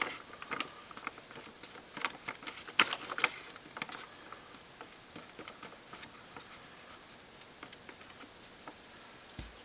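Seed-starting potting mix being scooped by hand from its plastic bag and dropped into a plastic seedling cup, the crumbs landing in scattered light patters and ticks. They come most often in the first few seconds and thin out after.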